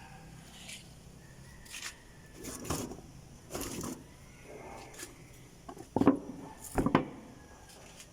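Scattered handling noise: short knocks, clicks and brief scrapes, with the loudest sharp knocks about six and seven seconds in.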